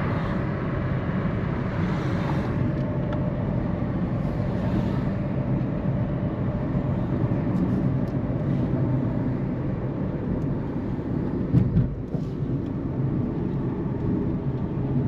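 Car driving along a road: steady engine and tyre noise, with a brief thump about three-quarters of the way through.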